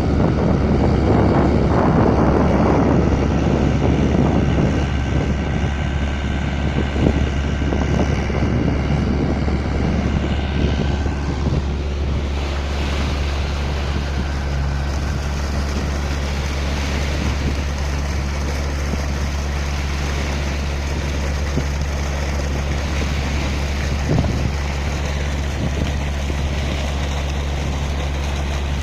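Botsman 160 mini dredger's engine running steadily with a deep, even hum, a rushing noise over it for the first few seconds.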